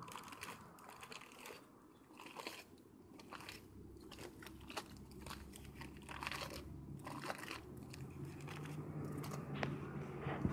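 Paper towel crinkling and rubbing over a freshly spray-painted refrigerator panel under gloved hands, in irregular crackly strokes with scattered sharp clicks.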